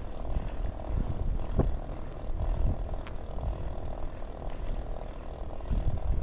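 Riding noise from a bicycle rolling along an asphalt path, mostly a low rumble of wind buffeting the microphone, with a steady hum underneath and a couple of light knocks.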